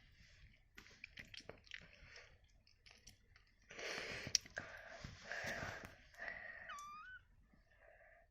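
Faint rustling and handling sounds, then a young kitten's short, thin mew rising in pitch near the end.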